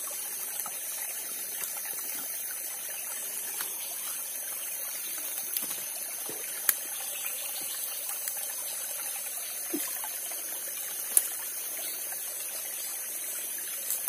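Shallow stream trickling steadily over stones, with a few sharp clicks, two of them standing out about seven and eleven seconds in.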